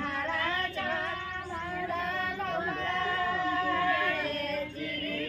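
Singing: a song with long, wavering held notes, broken into phrases by short pauses, near the start and again near the end.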